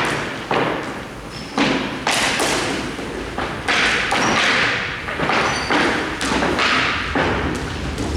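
A string of sudden thuds and knocks, roughly one or two a second, each trailing off in a short scraping hiss.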